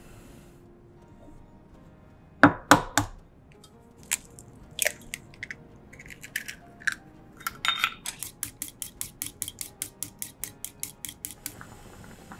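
An egg cracked against the rim of a ceramic bowl with two or three sharp knocks, the shell pulled apart with small clicks, then the egg beaten fast in the bowl, the utensil clicking against it about six times a second for three or four seconds. The soft bubbling of the simmering soup comes in near the end.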